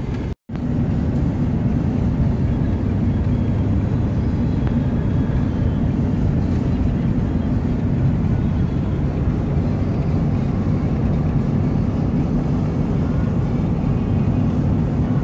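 Steady road and engine noise heard inside a moving pickup truck's cab, a low even rumble. It drops out to silence for an instant about half a second in, then carries on unchanged.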